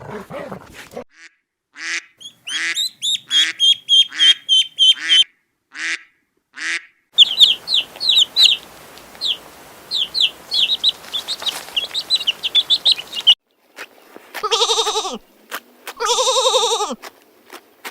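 Birds calling in a quick run of repeated calls, then a stretch of rapid high-pitched peeping chirps. Near the end come two long, wavering animal bleats.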